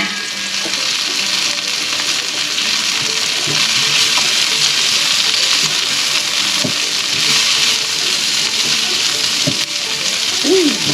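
Sliced celery and sweet bell peppers sizzling steadily in a hot oiled pan with garlic and onion, a vegetable stir-fry cooking.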